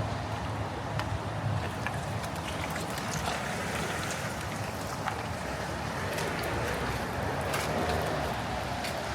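Wet city street ambience: a steady hum and hiss of traffic with scattered faint clicks, swelling slightly late on as a vehicle passes.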